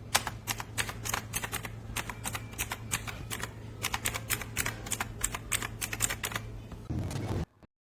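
Typing on an AULA F2088 mechanical keyboard with clicky blue switches: a quick, uneven run of sharp key clicks, about four or five a second, over a low steady hum. A short low rumble comes near the end, and then the sound cuts off suddenly.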